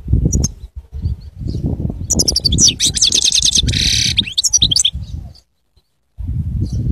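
European goldfinch singing: a burst of fast, high twittering notes with a harsh buzzy stretch in the middle, over a heavy low rumble. All sound cuts out for under a second near the end.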